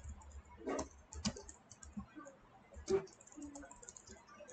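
Computer keyboard typing: irregular, fairly soft keystrokes, with a few louder clacks about a second in and again near three seconds.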